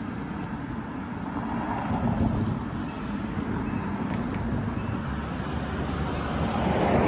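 Cars passing on the road, a steady traffic rush that swells about two seconds in and grows louder near the end.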